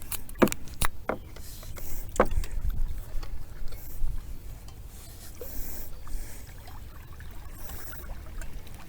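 Handling noises in a kayak: a few sharp knocks and clunks in the first couple of seconds, then quieter rustling and light water sounds over a low rumble.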